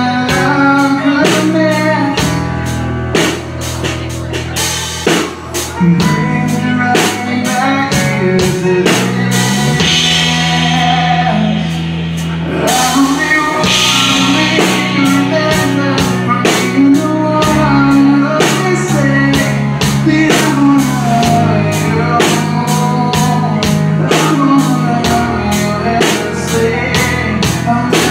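Live rock band playing: a male singer over electric guitar, bass guitar and a drum kit. The drums drop back for a few seconds about ten seconds in, then the full band comes back in.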